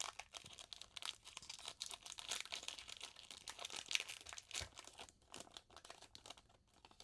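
Baseball card pack wrapper being crinkled and torn open, a dense run of irregular crackles that thins out near the end.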